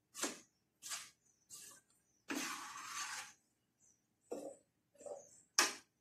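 Kitchen knife cutting tomato on a plastic cutting board: three sharp chops about two-thirds of a second apart, then a scraping rustle lasting about a second. Near the end come a few more knocks as the tomato pieces are handled into a plastic jug, the last one the sharpest.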